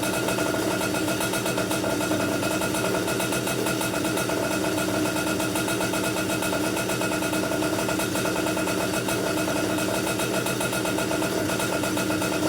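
Komet K30 two-stroke rotary-valve kart engine, fitted with a stroker crank and a new 55 mm piston, running steadily at an even speed during the new piston's break-in.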